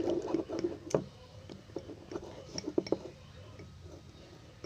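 Clear glue slime being stirred as it firms up, with irregular wet squishes and small clicks that are busiest in the first second, then sparser.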